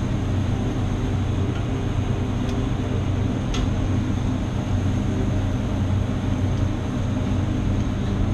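Steady mechanical drone of a commercial kitchen's extractor hood and grill, with a low hum underneath and two light clicks about a second apart near the middle.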